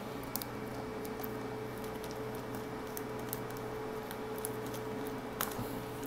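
Faint handling noises: light clicks and rustles as a motherboard in its anti-static bag is shifted in its cardboard box, with one sharper click near the end, over a steady low hum.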